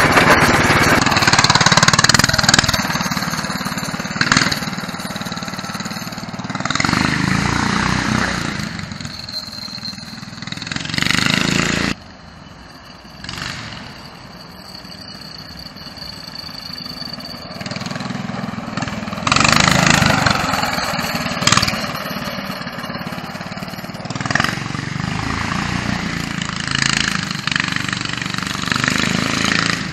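Homemade go-kart's small engine with a modified exhaust, running under throttle. It is loud and close at first; about twelve seconds in it drops away to a distant drone, then grows louder again as the kart comes by and fades off.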